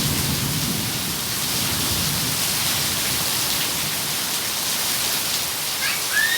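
Steady rain falling with an even hiss, a low rumble of thunder dying away in the first two seconds, and a brief high chirp near the end.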